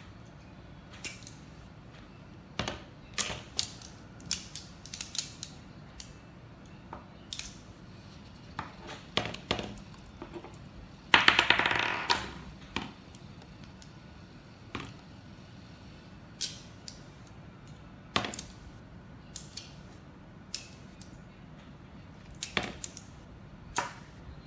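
Small magnetic Polar Pen pieces clicking and snapping together, sharp single clicks at irregular intervals, with a dense rattling clatter lasting about a second and a half around the middle.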